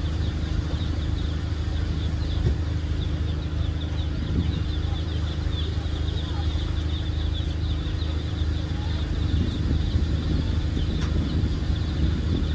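Docked fast ferry's engines idling: a steady low drone, with a continuous high chirping and faint crowd voices over it.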